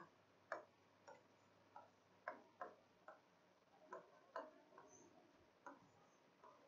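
Faint, irregular clicks and taps of a pen or stylus on an interactive whiteboard screen during handwriting, about a dozen over several seconds.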